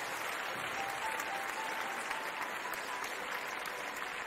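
Steady applause, with soft background music beneath it.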